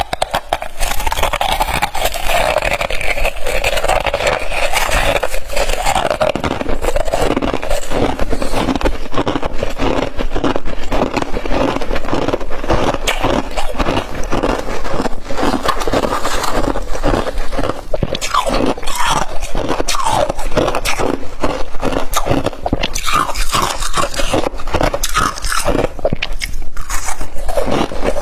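Close-up crunching and squeaking of humidifier frost being squeezed by hand and bitten: a dense run of crisp crunches with short squeaks, more frequent in the second half.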